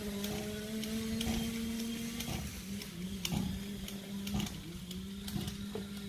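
The 30.5cc two-stroke petrol engine of a 1/5-scale RC car running at a steady, fairly high pitch, rising a little near the end, with scattered faint clicks.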